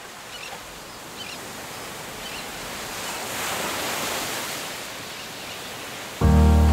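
Surf washing onto a beach, a soft hiss of waves that swells and eases off. Near the end, loud music suddenly comes in.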